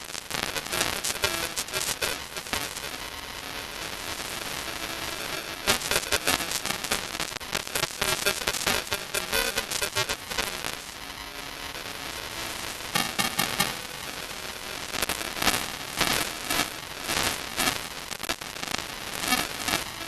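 Television broadcast audio breaking up into dense crackling and static, with garbled, distorted programme sound beneath: a fault in the feed's sound.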